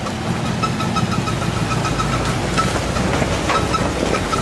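Off-road SUV engine running steadily.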